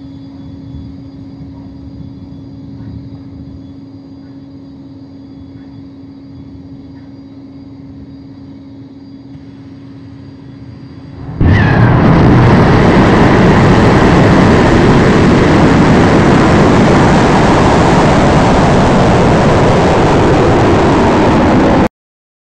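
A steady hum and hiss as water sprays at the pad. About eleven seconds in, the Falcon 1's Merlin first-stage engine ignites: a sudden, very loud, even rush of rocket exhaust that holds steady as the rocket lifts off, then cuts off abruptly near the end.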